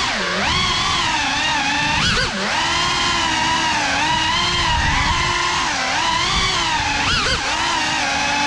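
Cinelog 35 ducted cinewhoop FPV drone on a 6S battery, its brushless motors and propellers whining in flight. The pitch swoops up and down with throttle, with sharp rises about two seconds in and again about seven seconds in.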